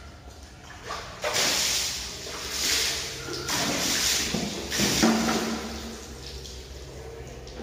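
Water thrown from a plastic bucket splashing over a scooter and onto a concrete floor. It starts about a second in, comes in four surges and dies away after about five seconds.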